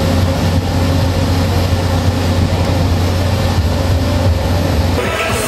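Trailer-mounted Caterpillar diesel generator set running with a steady low hum. Music cuts in near the end.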